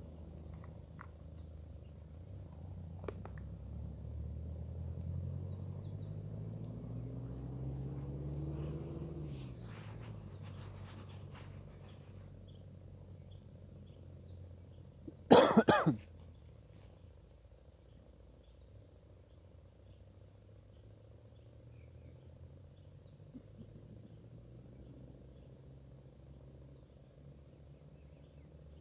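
Crickets chirring steadily at a high pitch, with a single short, loud cough about halfway through. In the first nine seconds a low hum rises steadily in pitch, then stops.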